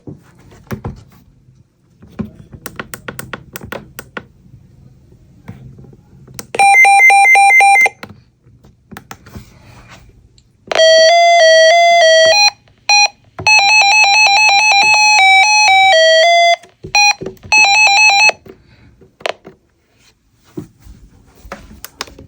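Emergency weather alert radios sounding their alarm tones in turn: a fast pulsing beep, then a steady tone, then a quick warble between two pitches and a short run of beeps. Clicks and knocks come between the alarms.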